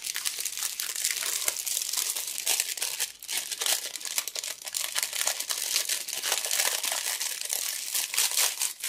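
Clear plastic bag crinkling as it is handled and slid off a rolled diamond painting canvas: a steady run of dense crackles, with a brief lull about three seconds in.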